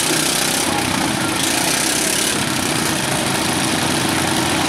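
Riding lawn mower engines idling steadily.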